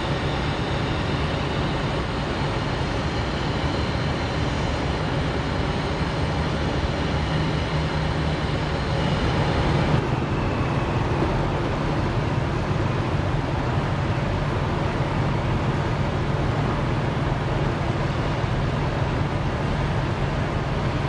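Diesel truck engine idling steadily with a low drone.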